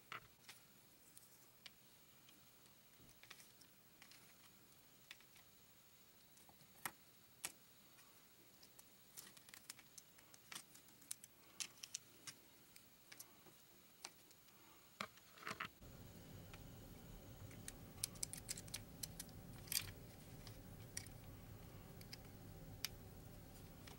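Faint, scattered clicks and snaps of plastic LEGO bricks being handled and pressed together, sparse at first and more frequent in the second half. A low steady hum comes in about two-thirds of the way through.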